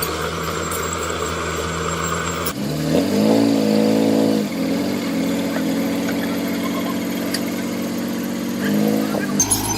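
Heavy construction machine's diesel engine running. About three seconds in it revs up to a steady higher speed, and it rises briefly again near the end. The engine sound changes abruptly twice.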